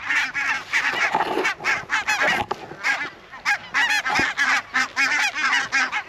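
A flock of barnacle geese calling overhead: many short honks overlapping in a dense, continuous chorus.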